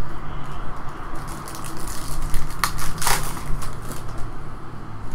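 Foil wrapper of a 2015 Donruss Soccer trading-card pack being torn open and crinkled by hand, with the sharpest crackles about three seconds in.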